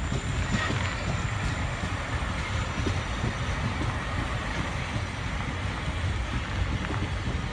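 South West Trains Siemens Desiro electric multiple unit running past over the tracks, a steady low rumble.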